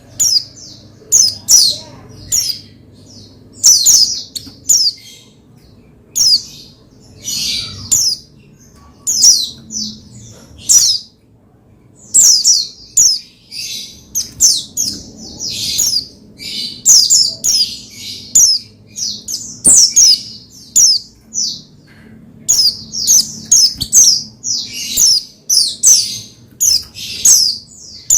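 White-eye (pleci) singing: rapid, high-pitched twittering phrases, one or two every second, with short pauses between them.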